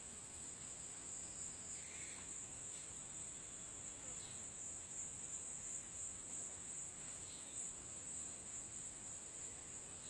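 Steady high-pitched insect drone, a chorus of crickets or similar insects, with a few faint short calls about two, four and seven seconds in.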